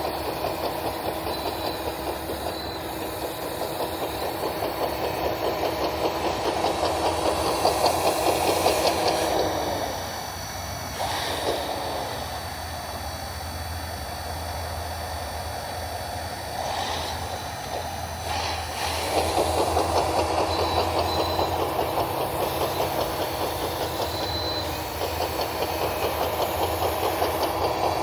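Radio-controlled scale model Caterpillar D10 bulldozer running with a steady, rapid mechanical chatter. About ten seconds in it drops lower and quieter, and about nine seconds later it picks back up to its earlier level.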